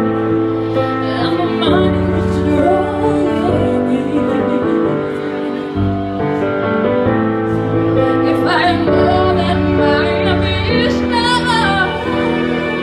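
A woman singing live into a microphone over instrumental accompaniment, with long held notes that waver near the end.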